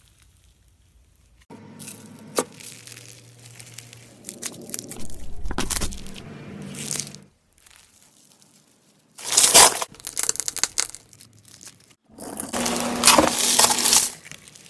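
Hands squeezing and stretching slime, crackling, popping and crunching in several bouts with short pauses between, starting about a second and a half in. The last bout is slime packed with foam beads being pressed.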